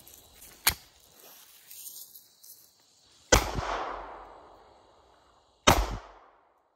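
Two pistol shots from a subcompact Glock 27 in .40 S&W, about two and a half seconds apart, each followed by a fading echo. A short sharp knock comes a little under a second in, before the shots.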